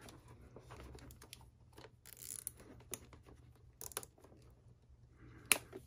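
Faint scattered clicks and rustling of hands fastening a zip tie and handling wires around a plastic relay in a dirt bike's airbox, with one sharper click near the end.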